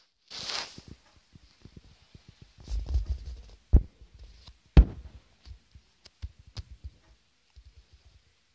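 Handling noise on a phone's microphone: rubbing and scattered dull bumps, a short hiss about half a second in, and two sharp knocks a second apart near the middle that are the loudest sounds. It thins out to a few faint bumps near the end.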